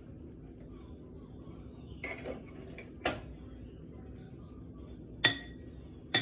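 A few short clinks of a utensil against a bowl as toppings are added to shredded lettuce, the loudest and most ringing one about five seconds in.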